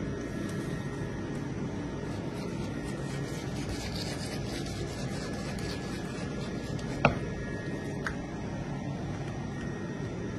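A steady low rumble of background noise, with one sharp click about seven seconds in and a fainter click a second later.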